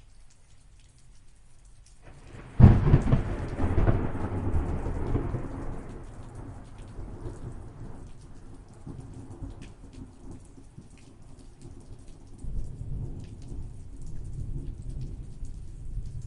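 Thunderstorm: steady rain patter, then a sharp thunderclap about two and a half seconds in that rolls on and fades over several seconds, with a second, lower rumble of thunder near the end.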